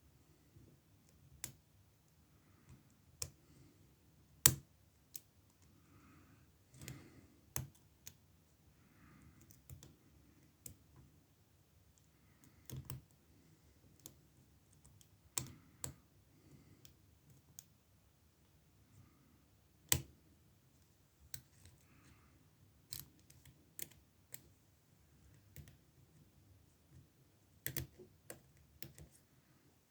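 Lock pick and tension wrench working in the keyway of an older Ruko oval cylinder in an ASSA padlock during single-pin picking: faint scraping with irregular sharp metallic clicks, a few of them louder.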